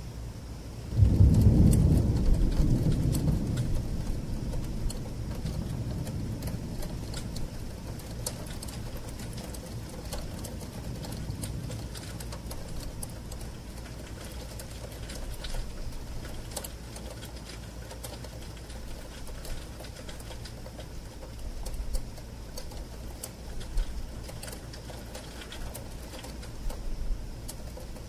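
Distant thunder, heard from inside through a bedroom window: a sudden low rumble about a second in that dies away over several seconds. Under it, steady rain with raindrops ticking on the window glass, a few louder drips near the end.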